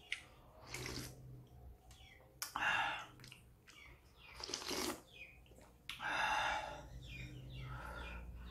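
A person slurping instant noodles off chopsticks: four noisy slurps about one and a half to two seconds apart, the second the loudest.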